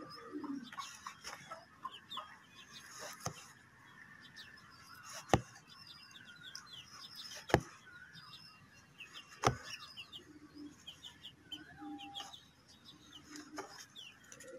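Small birds chirping over and over, with three sharp clicks about five and a half, seven and a half, and nine and a half seconds in.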